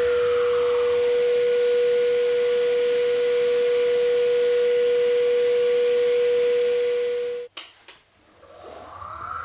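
Record Power DML320 wood lathe spinning with no tool on the wood: a steady, high motor whine. It cuts off suddenly about seven and a half seconds in, and a second later the lathe starts up again, its whine rising in pitch.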